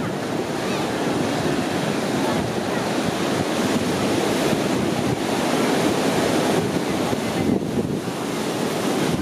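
Ocean surf washing steadily onto the shore, mixed with wind blowing on the microphone.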